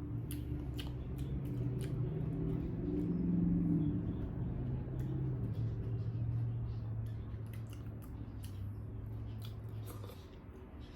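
Close-up eating sounds: chewing with many small wet mouth clicks. Underneath runs a low hum that is strongest about three to four seconds in and stops near the end.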